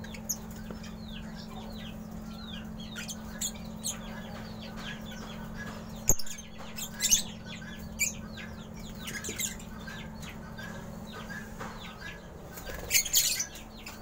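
Lovebirds chirping in an aviary: a steady stream of short, falling chirps, with a sharp knock about six seconds in and a few louder bursts of wing-flapping, the loudest near the end. A steady low hum runs underneath.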